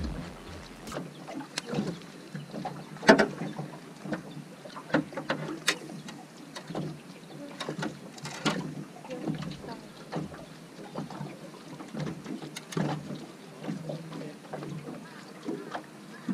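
Irregular splashes and knocks as a hooked black bass is fought to the side of a bass boat and landed by hand, with water slapping against the hull. The loudest splash comes about three seconds in.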